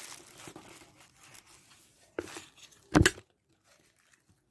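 Plastic takeaway packaging, a thin carrier bag and a clear plastic food-box lid, crinkling and rustling as it is handled. There are two louder crackles about two and three seconds in, the second the loudest.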